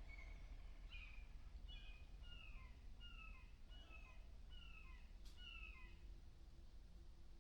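A bird calling faintly in the woods: a run of about eight short downslurred notes, roughly two a second, with a single sharp click near the end of the run.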